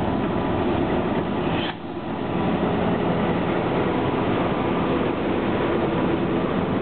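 Diesel locomotive and passenger coach passing close by: the locomotive's engine running and the wheels rumbling on the rails. The sound dips briefly about two seconds in.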